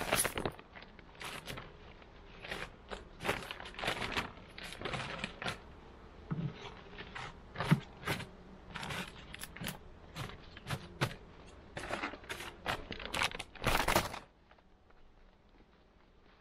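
Metal hive tool prying and scraping at the wooden frames and hive body of an open beehive: an uneven run of clicks, knocks and scrapes, with longer scrapes at the start and about fourteen seconds in, after which it stops.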